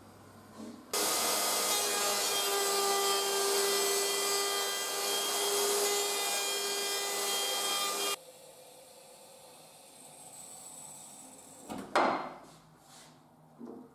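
A router mounted under a plywood router table runs and cuts along a wooden strip for about seven seconds, a steady high whine over the noise of the cut, starting and stopping abruptly. Near the end there is a sharp knock of wood on the bench, followed by a few lighter knocks.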